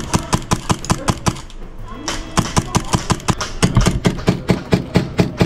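Airsoft guns firing a rapid string of sharp shots, about six a second, with no break.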